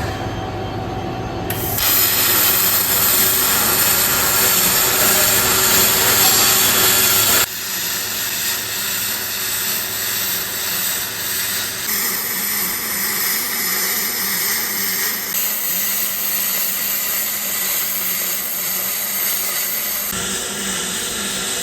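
MIG welding arc laying an aluminum bead from a Fronius TransSteel 2200, a steady crackling hiss. It drops abruptly in level about a third of the way in and runs on slightly quieter after that.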